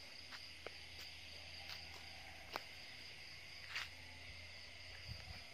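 Faint, steady high chirring of night insects, with a few soft clicks scattered through it and a low hum underneath.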